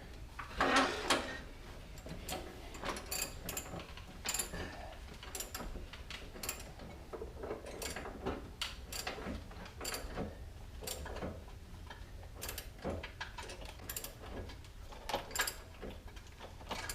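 Hand ratchet clicking in uneven runs, with metal tool clinks, as the upper control arm bolt is run in and tightened on a 4Runner's front suspension.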